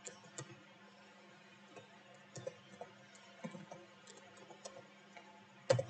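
Light, scattered clicks of typing on a computer keyboard, with one louder click near the end.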